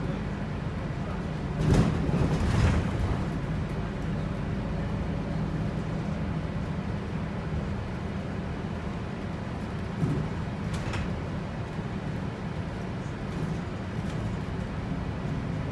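Volvo 8900LE B7RLE city bus under way, heard from inside the passenger cabin: a steady low drone from the diesel engine and driveline with road noise. A couple of knocks about two seconds in, and another about ten seconds in, from the body going over bumps.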